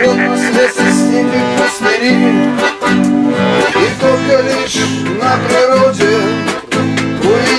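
Song music: chords played in a steady beat under a wavering melody line.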